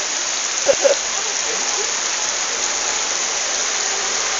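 Heavy rain pouring steadily, a dense even hiss of water. Two short pitched sounds, like a brief distant call, come just under a second in.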